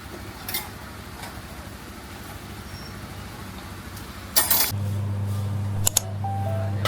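Steady street noise with traffic, a few faint clicks in it. A short loud burst of noise comes about two-thirds of the way in, and then a steady low hum sets in.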